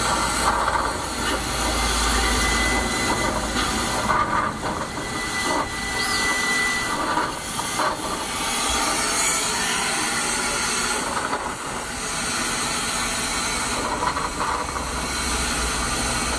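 Steady, loud hissing and rushing noise, with a thin high whistle-like tone held for about five seconds starting some two seconds in.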